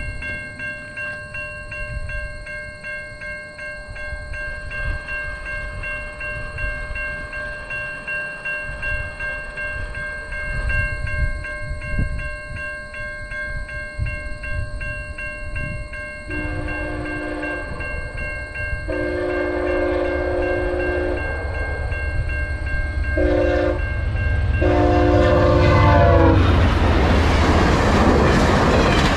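Level-crossing bell ringing steadily, then a VIA Rail GE P42DC locomotive horn sounds the crossing signal: two long blasts, a short one and a final long one, starting about halfway through. Near the end, the passenger train's wheels rush loudly over the crossing.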